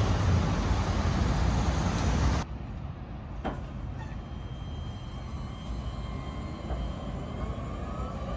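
Loud, steady city street traffic that cuts off abruptly about two seconds in. Then a modern electric tram rolls past on its rails and away, much quieter, with a faint high whine.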